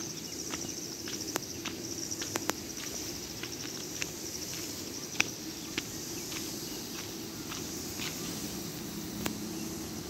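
Footsteps crunching on a gravel dirt road, irregular sharp crunches, over insects chirring steadily in a fast, high-pitched pulsing trill.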